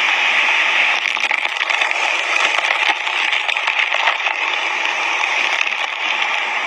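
Fast, raging river water rushing over rocks close by, a steady loud rush of water. From about a second in, a scattering of faint crackles sits over it.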